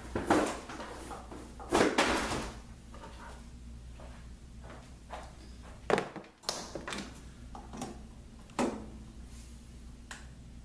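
Irregular knocks, clunks and rattles of tools and parts being picked up and set down on a workbench, the loudest about two seconds in and about six seconds in, over a low steady hum.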